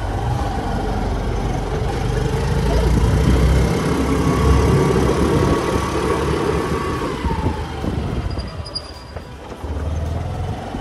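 Motor scooter ride heard from the pillion: the scooter's small engine running under wind buffeting the microphone, with the engine note rising and then falling away about two-thirds of the way through.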